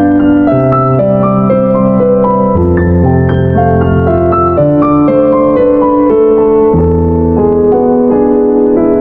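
Background music: piano playing slow, sustained chords with a melody above and low bass notes changing every second or two.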